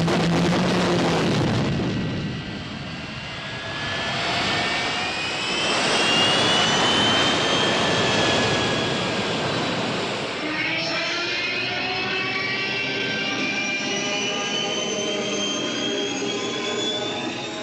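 Stock film sound effect of a turbine engine spooling up: a rushing noise with whines climbing slowly in pitch, and a second layer of rising whines joining about eleven seconds in. It is the turbine effect used for the 1966 Batmobile, Luke's Landspeeder and Doc Brown's DeLorean.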